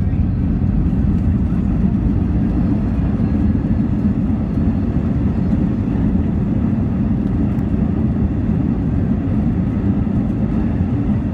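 Cabin noise of an Airbus A321-231 taxiing after landing: a steady low rumble from its IAE V2500 engines at idle and the wheels rolling over the concrete, heard from a window seat behind the wing.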